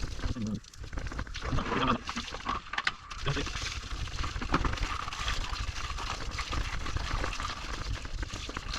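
Broken voice-like sounds, then from about three seconds in a steady hiss of water spraying during air-conditioner cleaning.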